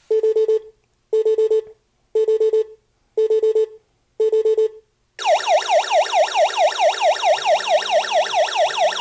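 Wireless home alarm hub triggered by its window sensor: five short beeps about a second apart, each a quick string of pulses, then about five seconds in a loud siren starts, warbling up and down about four times a second.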